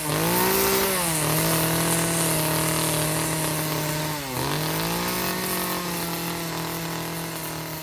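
Chainsaw running at high revs while carving wood. Its pitch sags briefly about four seconds in, then picks up again.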